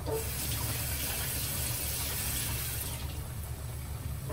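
Battered cod fillet deep-frying in a pot of hot oil: a busy, crackling sizzle, easing off a little after about three seconds, over a steady low hum.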